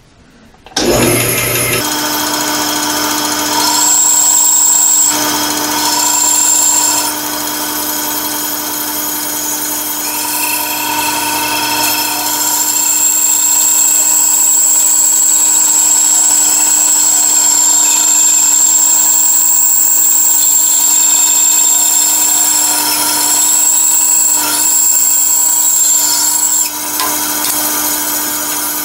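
Bandsaw with a Timberwolf 3/16-inch, 10 TPI blade running and cutting through a 2x4 wood block, starting about a second in. A steady motor hum runs under a high cutting whine that comes and goes as the wood is fed. The cut stops near the end and the saw keeps running.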